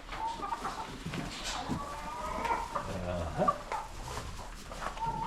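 Chickens clucking, with short calls scattered throughout.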